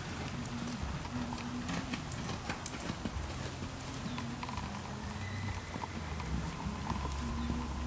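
Hoofbeats of a cantering horse on a dirt arena, a scatter of dull thuds that is thickest in the first few seconds.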